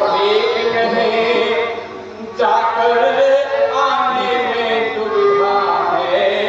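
A man's voice chanting a sung verse over musical accompaniment. It drops away briefly about two seconds in, then comes back suddenly.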